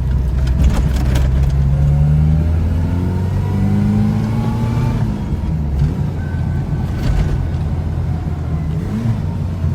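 Ford Escort RS2000's 2.0-litre four-cylinder engine, heard from inside the cabin while driving: it revs up with a rising pitch through the middle, changes gear and runs steadier, with a short blip near the end.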